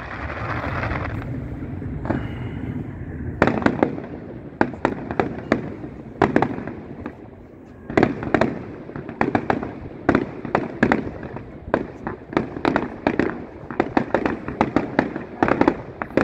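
Aerial fireworks shells bursting: an irregular series of sharp bangs and cracks, a few spaced out at first and coming rapidly from about three-quarters of the way through.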